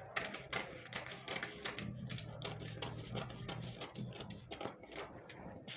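Scissors cutting through brown pattern paper: a run of quick, irregular snips and paper crackle.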